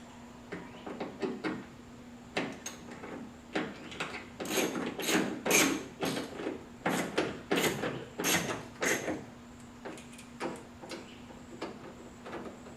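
Hand tool tightening the screws of a door latch assembly: a run of short clicks and rasps, sparse at first, then about two a second for several seconds in the middle before thinning out.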